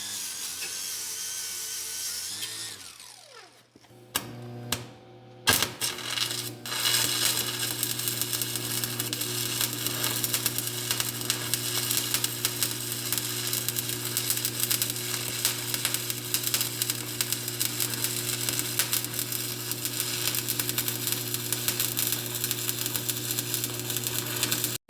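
Angle grinder spinning and winding down, then, after a few clicks, started again and grinding steel, a loud steady hiss with a low hum, as the weld on the trencher frame is ground flush.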